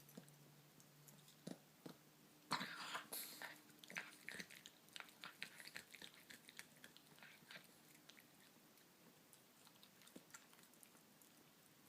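A pet chewing: a cluster of soft clicks and crunches starting about two and a half seconds in, then sparser clicks that die away after about eight seconds.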